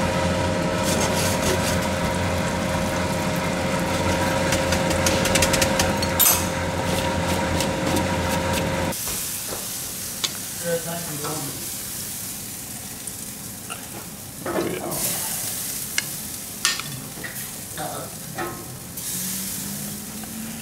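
Garlic sizzling in butter and olive oil in a pan, with scattered short clicks. A steady hum over the sizzle cuts off suddenly about nine seconds in, leaving the quieter sizzle.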